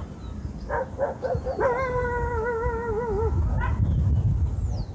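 An animal calling: a few short calls about a second in, then one long quavering call lasting nearly two seconds, over a steady low rumble.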